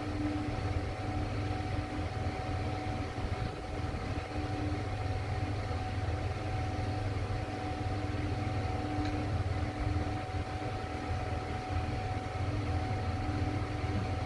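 IFE passenger lift car travelling down between floors, giving a steady low hum and rumble with a thin constant whine above it.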